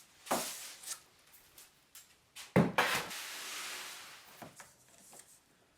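Workshop handling noises: a knock, then a louder knock followed by a scraping rub lasting about a second and a half that fades, and a few light clicks near the end.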